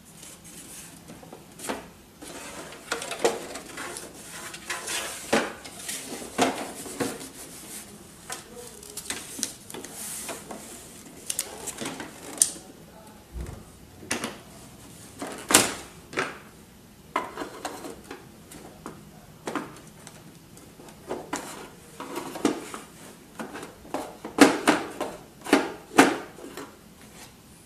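Plastic casing of an HP F2410 all-in-one printer being handled during disassembly: irregular clicks, knocks and rattles as it is lifted, turned and worked at by hand, with a cluster of sharper knocks near the end.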